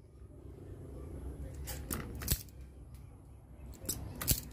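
Electrical wires being handled at a junction box: low rustling with a few sharp clicks, two close together about two seconds in and two more near the end.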